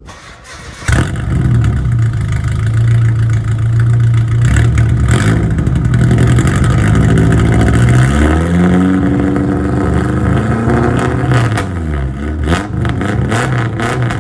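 Nissan 240SX exhaust, a 4-inch ISR system straight-piped with no catalytic converter, with a raspy tone. The engine comes in sharply about a second in and holds a steady speed. It then revs up and drops back near the end, with a rapid crackle as it settles.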